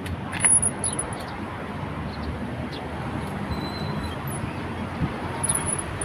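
Steady traffic noise from a busy city road. There is a sharp click about half a second in, a few fainter clicks, and brief faint high-pitched tones now and then.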